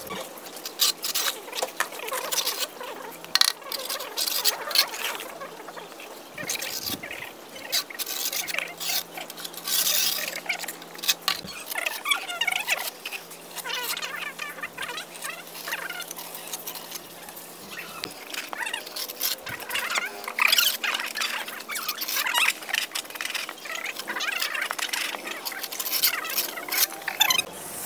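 Mason's steel trowel scraping and tapping wet cement mortar onto a brick wall, in many short, irregular strokes.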